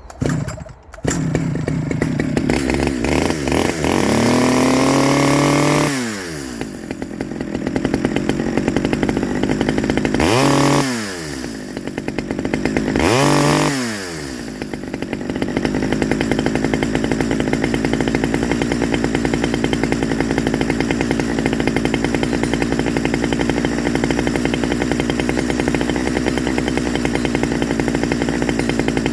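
Stihl 009 top-handle chainsaw's small two-stroke engine catching about a second in and revving up and back down, then blipped twice more before settling into a steady, evenly pulsing idle. The owner says it is running way too rich.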